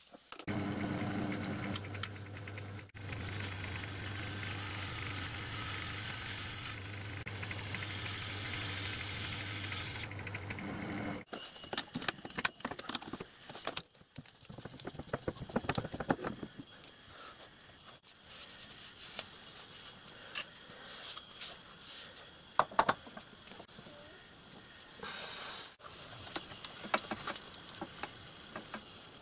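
A metalworking lathe runs steadily, with a low hum and a hiss, holding a bronze cylinder end cover in its chuck, and stops about 11 seconds in. After that come scattered metallic clinks and knocks as the chuck is taken off the lathe and set on a milling machine's rotary table.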